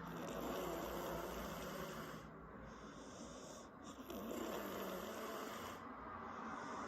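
A woman snoring, rasping breaths swelling and fading over about two slow breath cycles, with her lips flapping on the out-breaths.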